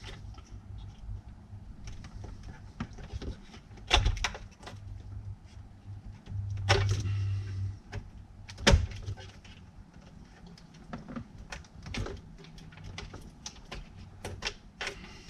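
Plastic wiring-harness connectors being unclipped and pulled off the radio and Starlink telematics box behind a car's dash: a run of clicks and knocks, the sharpest about four, seven and nine seconds in, over a faint low hum.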